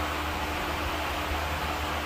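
Steady hum and hiss of running machinery, with a low droning hum underneath and no distinct knocks or clicks.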